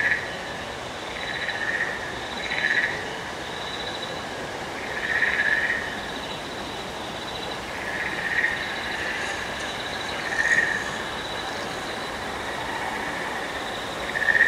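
Frog-like creature calls: a short croaking chirp every one to three seconds, about seven in all, over a steady high insect-like hum.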